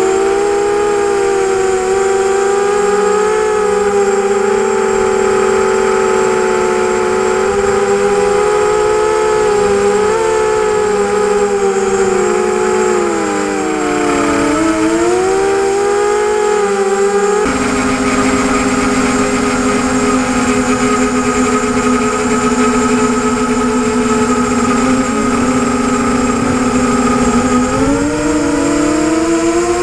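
ZMR250 250-size FPV quadcopter's brushless motors and propellers whining, heard through its onboard camera, the pitch sagging and climbing with throttle. About halfway through the sound changes suddenly to a steadier, lower whine, which climbs in pitch again near the end.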